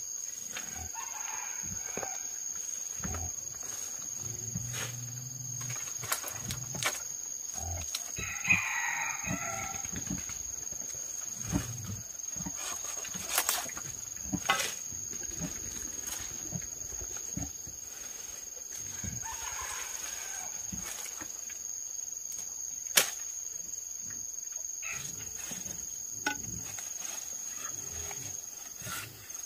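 Chickens calling a few times, the longest call about eight seconds in, over a steady high-pitched whine, with several sharp knocks from handling a bamboo pole being set upright in the ground.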